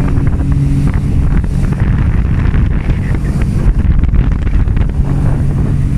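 Loud wind buffeting the microphone over the steady drone of a jet ski engine under way on the water.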